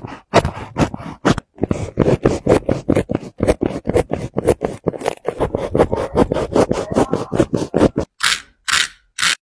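Utility knife cutting along the seam between a basketball shoe's upper and its midsole: rapid short scraping strokes, about four or five a second. Near the end come a few thinner, hissier scratches before it stops.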